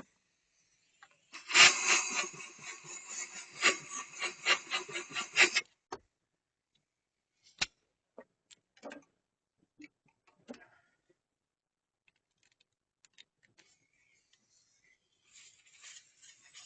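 Compressed air from a blow gun hissing for about four seconds into a freshly tapped spark plug hole in a V10 cylinder head, clearing out the metal filings from the tapping. Scattered light clicks of tools being handled follow, and a faint rubbing starts near the end.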